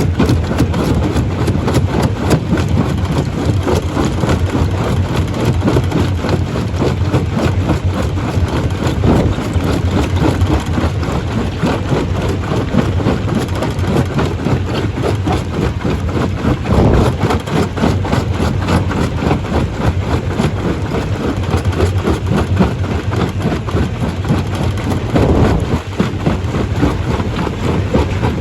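Stone crusher plant running: a loud, continuous, low-pitched mechanical din, thick with fast rattling, with two brief louder knocks, one a little past halfway and one near the end.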